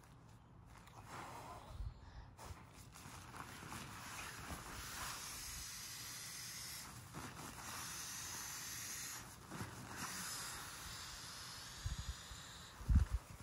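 Nemo Vortex nylon pump sack being filled with air and squeezed into a Nemo Tensor sleeping pad: a hiss of rushing air with rustling fabric, strongest for several seconds in the middle, then a few low thumps near the end.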